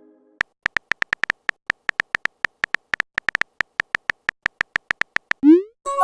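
Simulated phone-keyboard typing sounds from a texting-story app: a fast, uneven run of short tap clicks lasting about five seconds, followed near the end by a rising swoosh as the message is sent.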